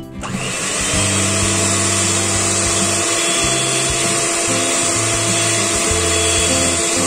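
Electric hand mixer starting up and running steadily at one speed, its twin beaters churning a thick almond-flour and egg batter, with a steady motor whine.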